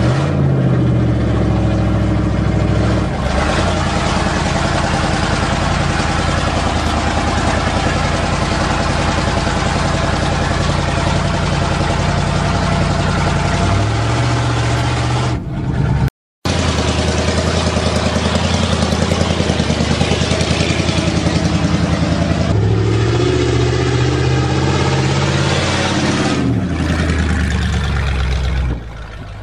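1977 GMC truck engine running, revved up and let back down about three times. The sound drops out for a moment just past halfway.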